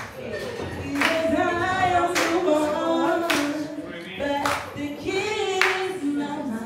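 A voice singing a slow melody of held notes, with a sharp percussive hit about once a second.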